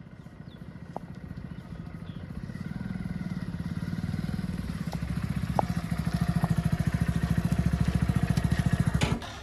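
Sonalika DI 42 RX tractor's diesel engine running with a fast, even beat, growing louder over the first six seconds, then dropping off abruptly near the end.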